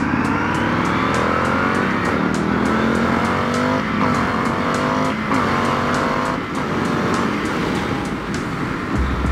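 Indian FTR 1200's V-twin engine accelerating hard from a standstill. Its pitch rises in each gear and drops back at upshifts about four, five and six and a half seconds in, then it settles to a steadier cruise with wind rush.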